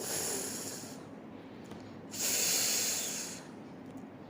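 A woman's voice making the phonic sound of the letter F, a breathy unvoiced "fff" hiss, twice: once briefly right at the start and again about two seconds in.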